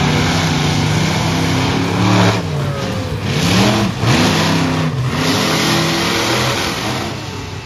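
Two monster truck engines revving hard as the trucks race side by side. The engine pitch swoops up and down several times, with the strongest revs about two seconds in and again around the middle.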